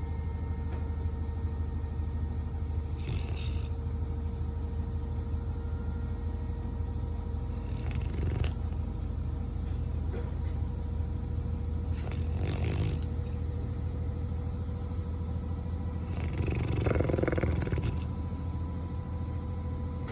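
Labrador retriever snoring in its sleep, broken by four louder outbursts spread through, the longest and loudest near the end; the owner takes it for a bad dream.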